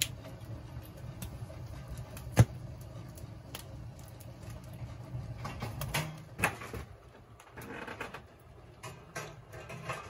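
Wood fire burning in an open-topped tent wood stove, with a steady low draw and scattered crackles and sharp clicks as a wire grill rack is held over the flames; one loud sharp click about two and a half seconds in, and another cluster of clicks a little past the middle.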